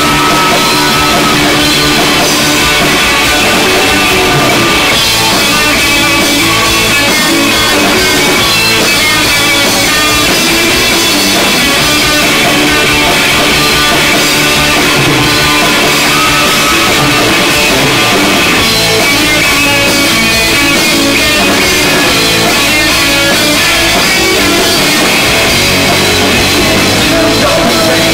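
Rock band playing live and loud: electric guitars, bass guitar and a drum kit driving along without a break.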